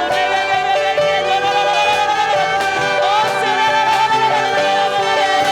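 Church worship music: a melody holds one long, slightly wavering note over sustained accompanying chords.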